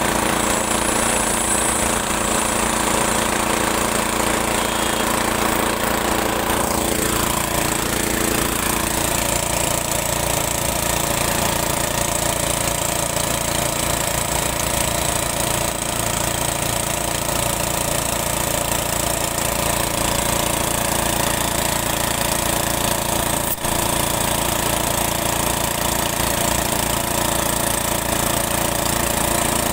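Air compressor running steadily while a motorcycle tyre is worked on with an air hose during a puncture repair. One tone in its sound slides down in pitch about seven seconds in, and a single sharp click comes near the end.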